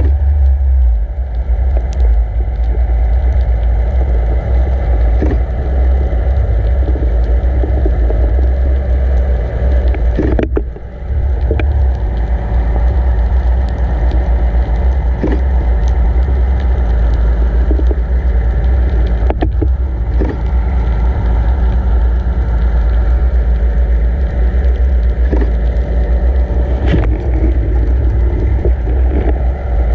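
Steady low rumble of water rushing past a GoPro housing on a camera rig towed underwater behind a boat, with a few faint knocks and a brief dip in loudness about ten seconds in.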